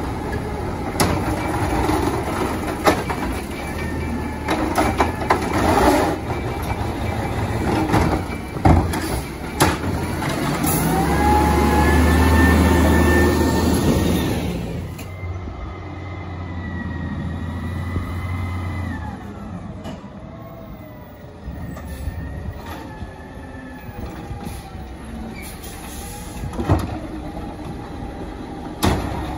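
Pendpac automated side-loader garbage truck at work: knocks and clatter as a cart is handled, then the engine revs up with a rising whine from the hydraulic arm, holding for several seconds. Afterwards the engine runs lower as the truck moves on, with an occasional knock.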